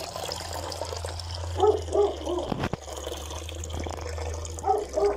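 Water pouring in a thin stream into a plastic bowl, a steady splashing trickle. Short voice-like sounds come about 2 s in and again near the end, and a sharp knock sounds just before 3 s.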